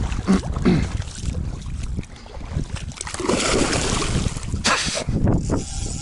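Wind rumbling on the microphone over splashing river water as a taimen is held in the current to revive it, with a louder rush of water about halfway through and a sharp splash shortly after.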